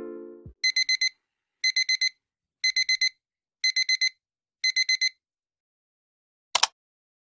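Electronic alarm beeping: five groups of four quick high beeps, about one group a second, after music fades out at the start. Near the end comes a single sharp click, a mouse-click sound effect.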